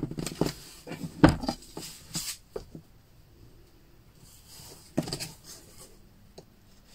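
Handling sounds from a firm clay slab on a workbench: a few short knocks, the loudest about a second in, then a soft scrape about five seconds in as a knife is drawn through the slab to cut a strip.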